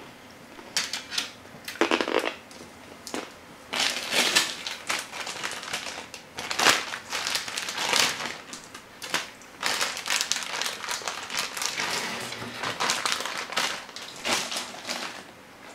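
Irregular crinkling and rustling of stiff hookup wire being pulled and bent by hand onto LED leads, with light clicks and scrapes against a plastic Lite Brite case.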